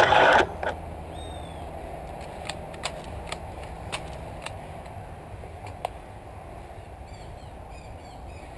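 A short loud burst of noise right at the start, then low rustling of brush with scattered sharp clicks, like twigs snapping, as someone moves through dense undergrowth. A few faint bird chirps come and go.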